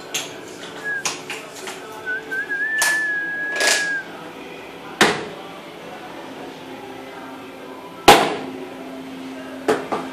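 Sharp knocks and taps from hands and tools working large polished porcelain floor tiles as they are pressed and set. The loudest knock comes about eight seconds in. A thin whistle sounds for a couple of seconds near the start.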